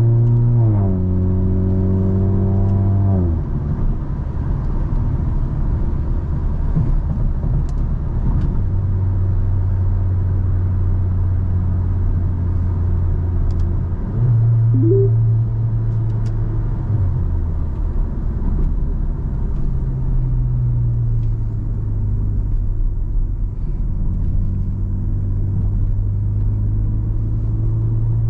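Car engine and road noise while driving: the engine note rises under acceleration at first, drops sharply twice in the first few seconds, then holds mostly steady with a few steps up and down in pitch, over a constant low rumble of tyres on the road.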